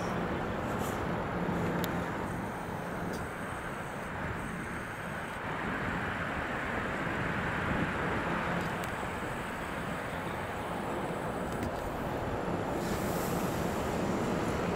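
Steady road traffic noise from cars on the surrounding roads, swelling a couple of times as vehicles pass, with wind rumbling on the microphone.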